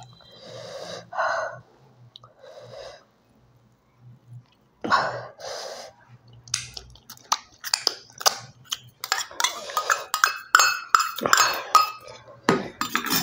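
Soft eating sounds, then from about halfway many quick clinks and scrapes of a stainless steel spoon against a steel bowl as curry is spooned out of it.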